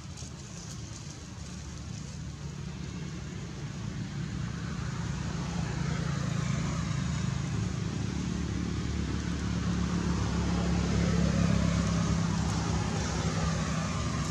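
A motor vehicle's engine running steadily, growing louder over several seconds and peaking near the end, like a vehicle coming closer.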